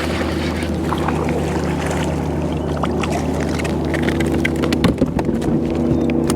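A hooked fish being reeled in to a kayak: fishing reel cranking and water sloshing over a steady low hum, with a cluster of sharp knocks and clicks about five seconds in as the fish comes to the boat.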